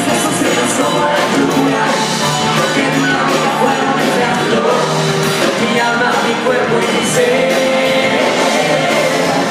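Men's voices singing live into microphones over amplified backing music with a steady beat.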